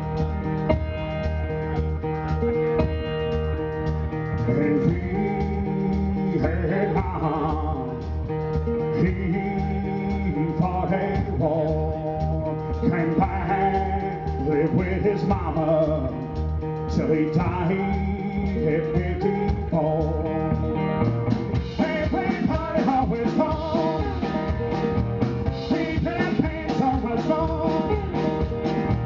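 Live country-blues band: a resonator guitar picked over a steady drum beat, with a man singing from about five seconds in. The band sound fills out and gets busier about two-thirds of the way through.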